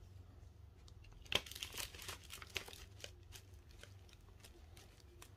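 Crinkling and crackling of a clear plastic packet of dried flowers being handled. A run of sharp crackles starts about a second in, loudest at the start, and dies away before the middle.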